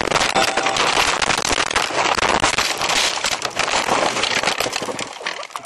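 A car ploughing off the road into deep snow, heard from inside the cabin: a dense, continuous crackling and clattering of snow and ice striking the body and windscreen, easing off about five seconds in.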